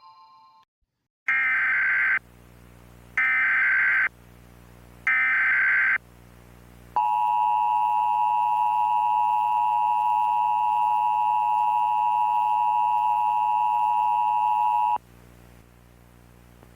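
Emergency Alert System tones: three SAME header data bursts, each about a second long and a second apart. They are followed by the two-tone EAS attention signal, held steady for about eight seconds before it cuts off. This is the sequence that opens an emergency alert broadcast.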